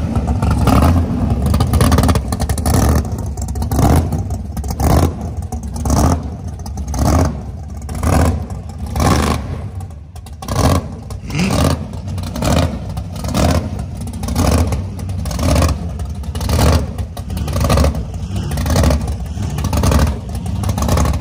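Engine of a lowered square-body Chevy pickup running with a heavy, lumpy idle, rising and falling about once a second over a steady low rumble.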